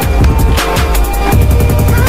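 Loud electronic background music with a heavy bass line and a fast, even drum beat.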